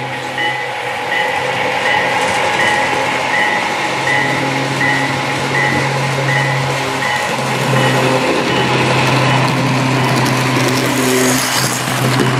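Model diesel locomotive running on a layout: a steady low hum under a hiss of running noise, with a high ding repeating about twice a second that stops about seven seconds in.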